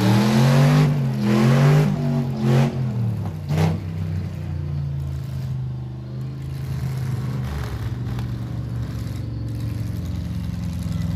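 Demolition derby truck engine revving hard in repeated swells, rising and falling about once a second, with a couple of sharp knocks two to four seconds in. About four seconds in it drops back to a steadier, lower run.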